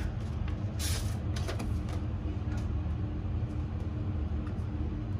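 Steady low hum with a few brief papery rustles and taps, about one to two seconds in, as a greeting card is taken out and opened.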